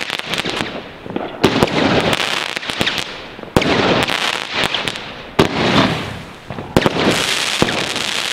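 Two Goldfinger consumer fireworks going off together: a string of sharp bangs every second or so, with a continuous crackling hiss of burning stars between them.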